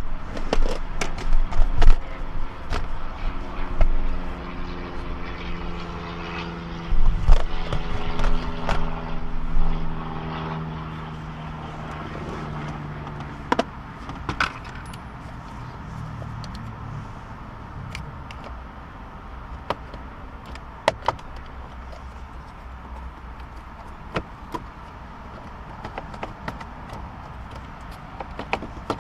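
Knocks and handling bumps, then scattered sharp clicks, as plastic interior trim in a Honda Civic's centre console is pried at with a plastic trim removal tool. A steady hum of several tones runs through the first half and fades out about halfway.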